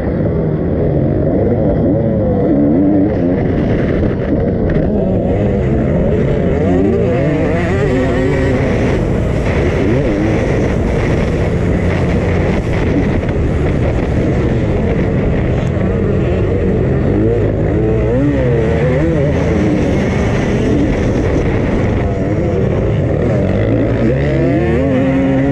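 2001 Honda CR250 motocross bike's two-stroke single-cylinder engine being ridden hard on a practice lap, its pitch rising and falling over and over as the throttle is opened and shut through the gears.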